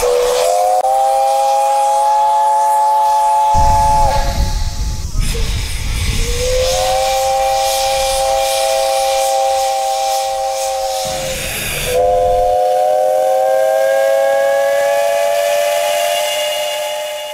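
Steam locomotive C12 66's chime whistle sounding three long blasts, each a chord of several tones that settles in pitch just after it starts. A low rumble and steam hiss run under the middle blast.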